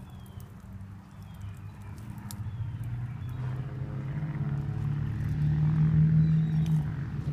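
A motor vehicle's engine hum, growing steadily louder over the first several seconds and then holding, with faint scattered ticks.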